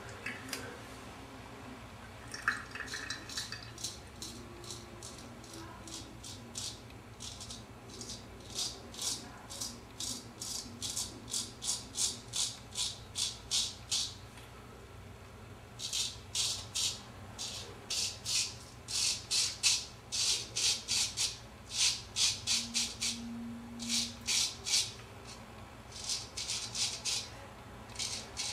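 Keen Kutter No. 44 straight razor, German steel blade, scraping through lathered stubble on a second pass for a closer shave. Short raspy strokes come about two a second, in runs broken by brief pauses.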